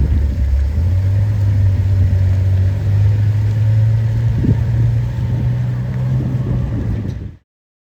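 Ferrari 812 Superfast's naturally aspirated 6.5-litre V12 running at low revs, a deep steady rumble whose pitch steps up once about half a second in, then holds. It cuts off suddenly near the end.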